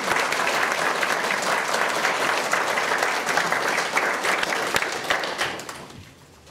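Applause, a dense patter of many hands clapping that dies away near the end.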